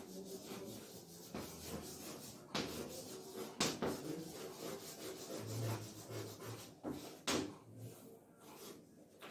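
Chalk writing on a blackboard: faint scratchy strokes, with several sharp taps as the chalk strikes the board.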